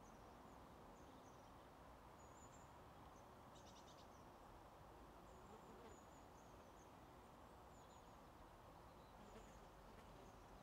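Near silence: faint outdoor meadow ambience, a steady low hiss with scattered faint high chirps and a brief rapid clicking trill a little before four seconds in.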